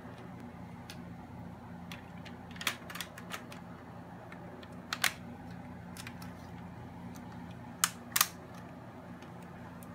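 Lego-brick rubber-band rifle being handled and loaded: about half a dozen sharp plastic clicks and snaps, spread out, the loudest pair about eight seconds in, over a steady low hum.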